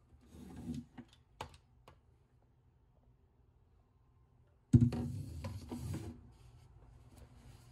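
A plastic hand-held hair dryer being handled on a wooden shelf. Soft rustling and a couple of light clicks as it is picked up, then a sudden knock about two thirds of the way in as it is set back down, followed by a second or so of clattering and cord rustling.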